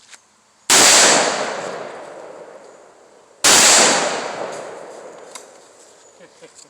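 Two 12-gauge shotgun blasts nearly three seconds apart, each echoing and dying away over a couple of seconds.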